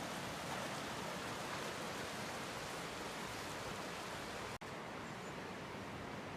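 Waterfall: falling water rushing steadily, with a momentary break about four and a half seconds in.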